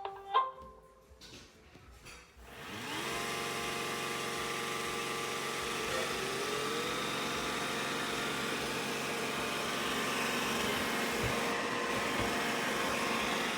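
iRobot Roomba i7+ robot vacuum starting: a few short beeps and clicks, then about two and a half seconds in its motors spin up with a rising whine and run steadily.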